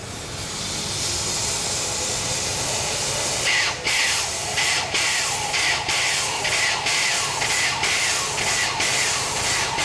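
Steam hissing from a standing steam tank locomotive. It swells over the first few seconds, then from about three and a half seconds in it pulses in regular beats about once a second.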